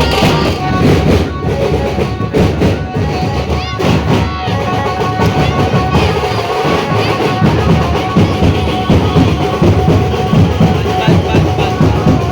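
Loud music with a heavy drum and bass beat played through a large DJ sound system.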